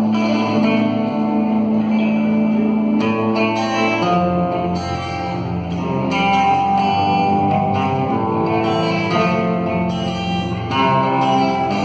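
Instrumental music led by guitar over sustained chords, with the harmony and bass changing about four seconds in.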